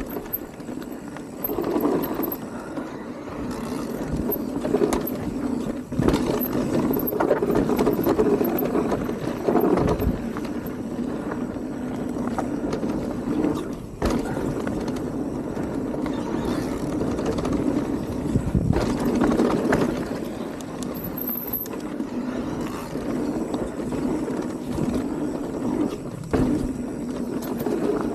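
E-mountain bike riding fast down a dirt trail: a steady rumble and rattle of tyres and frame, broken every few seconds by sharp knocks as it hits bumps.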